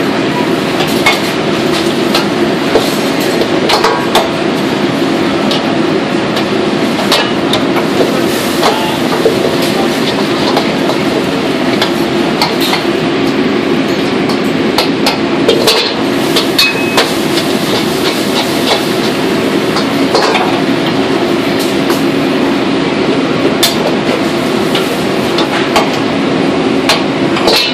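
Gas wok burners on a restaurant wok range running with a loud, steady rush, and a metal ladle clanking against steel woks now and then.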